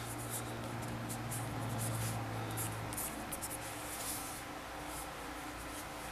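Light scratching and small clicks of hands handling and turning smartphones, fingers rubbing on their hard plastic backs, over a low steady hum that fades after about three seconds.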